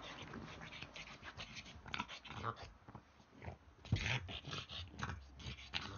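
A small dog making short, irregular vocal noises while playing with a toy on carpet, the loudest about four seconds in.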